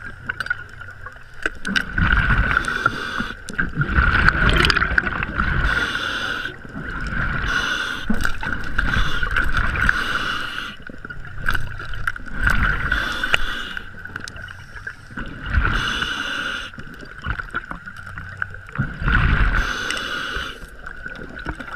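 Underwater noise through a diving camera's housing: a steady high whine throughout, with recurring bursts of bubbling hiss every couple of seconds. Heavy low thumps and knocks come a couple of seconds in, around four seconds, and near the end.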